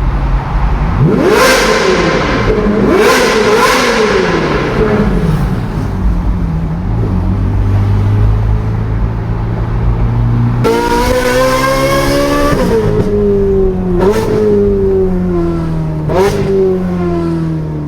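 Ferrari engine revving through an exhaust meant to sound like a Formula 1 car, loud: several quick revs in the first few seconds, then steadier, lower running. About two-thirds of the way through it turns suddenly louder and higher, and the note slowly falls in pitch, broken twice by short throttle blips.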